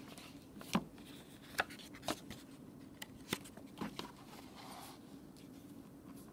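Paper pages of a picture book being turned by hand: about five short, crisp rustles and taps in the first four seconds, over a faint steady hum.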